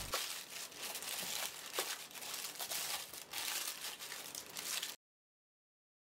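Butter paper (parchment) crinkling and rustling as hands press and fold it into a round cake pan, with many small crackles; it cuts off abruptly about five seconds in.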